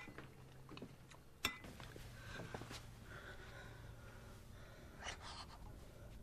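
Quiet room tone with a steady low hum, broken by a few small clicks and knocks: one about a second and a half in and a pair about five seconds in.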